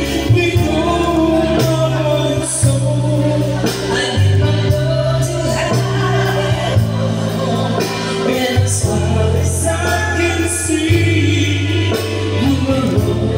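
A man and a woman singing into microphones in turn, amplified through a PA over music with a heavy bass line that steps from note to note every second or so.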